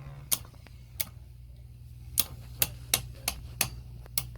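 Beyblade Burst tops spinning in a stadium and striking each other: about eight sharp, irregularly spaced clicking hits over a low steady hum.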